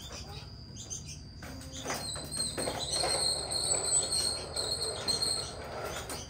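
A bird chirping in a high, wavering trill over a rough rolling rattle, which is a plastic toy truck's wheels being pushed across a tiled floor; both start about two seconds in.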